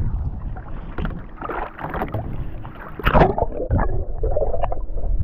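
Wind and water noise on a small boat, then a sharp splash about three seconds in as a camera goes into the lake, after which the sound turns muffled and low, heard from underwater.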